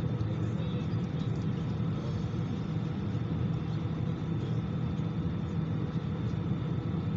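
Steady low drone inside the cabin of an Airbus A319 airliner, with two faint thin steady whines above it.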